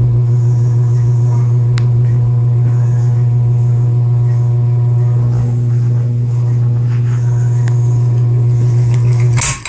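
Craftmade Brilliante ceiling fan's motor buzzing on low speed: a loud, steady electrical hum that cuts off suddenly near the end.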